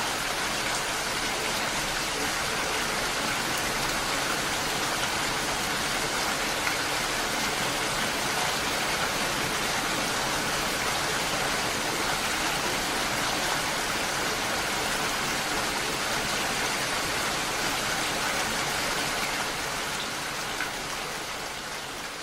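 Steady rain falling, an even hiss of drops that begins to fade out near the end.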